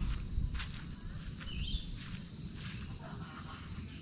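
Outdoor ambience: a steady high-pitched insect hum, a single short bird chirp about a second and a half in, and irregular footsteps over a low wind rumble on the microphone.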